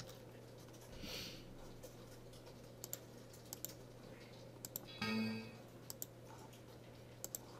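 Scattered computer keyboard and mouse clicks over a low steady hum, then about five seconds in a short pitched Windows error chime as a syntax-error dialog box opens.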